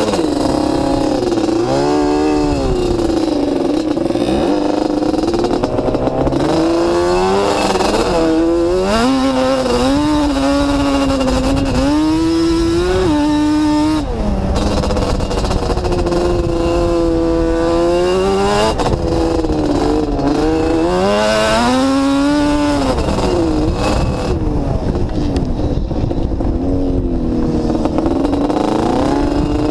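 Off-road motorbike engine revving up and down as it is ridden over sand dunes, its pitch rising and falling again and again with a brief drop in throttle about halfway through. Wind rushes over the camera's microphone.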